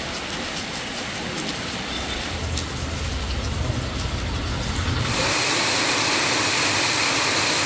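Heavy rain falling on a wet paved street and standing water, a steady hiss with a low rumble through the middle. About five seconds in it switches to a louder, even hiss of a night downpour.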